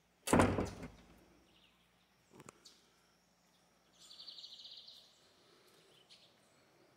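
A sharp knock about a third of a second in, dying away within half a second, then a smaller knock about two and a half seconds in. About four seconds in, a small animal gives a high, rapidly pulsing trill lasting about a second, against faint outdoor background.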